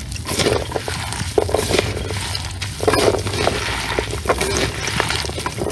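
Pomegranate arils being squeezed and kneaded by gloved hands in a plastic colander: irregular wet squishing with many small crackles as the seeds burst and shift, over a low steady hum.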